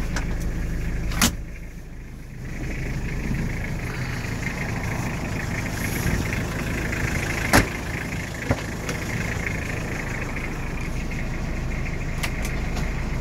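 Toyota Townace's 2-litre diesel engine idling steadily, heard from inside the cab. A sharp click comes about a second in, and a louder knock a little past the middle.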